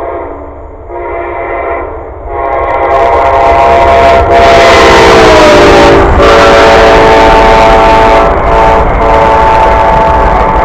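Amtrak Silver Star locomotive horn sounding its chord as the train approaches: a short blast, then one long held blast whose pitch drops as the locomotives pass, over the loud rumble of the passing train.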